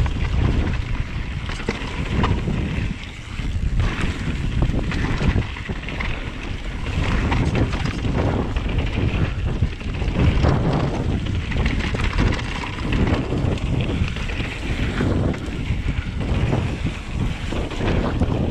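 Wind buffeting the microphone over the steady rumble and rattle of a Vitus Sommet mountain bike riding a trail.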